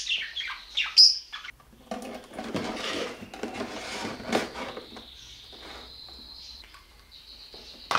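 Clicks and rustling of hands working wires onto a power adaptor, with a short high chirp about a second in. In the second half a steady high-pitched whine comes in.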